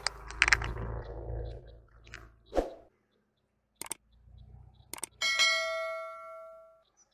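A car tyre rolling onto a plastic toy container of jelly, the plastic cracking and crunching over the low rumble of the car. After a short silence come a couple of sharp clicks and then a bright bell-like ding, the subscribe-button sound effect, ringing out for under two seconds.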